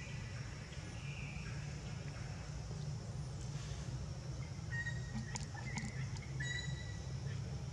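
Outdoor background: a steady high drone and a low hum, with a few short high squeaks and clicks about five to seven seconds in.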